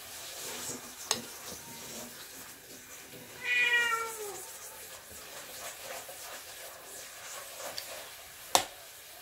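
A cat meows once, a single call of about a second that falls in pitch at its end, near the middle. A metal spoon clinks against a glass bowl twice, once early and once, more loudly, near the end.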